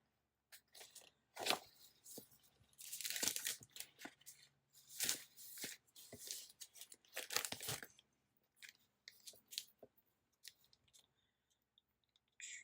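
Paper sticker sheets being handled and shuffled: irregular rustles and crinkles, the loudest about three seconds in and again at about seven and a half seconds, thinning out to a few faint ticks near the end.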